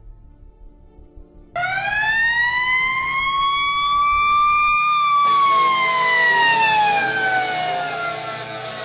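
Fire truck's siren wailing. It starts abruptly about a second and a half in, rises slowly in pitch for about three seconds, then slowly falls away.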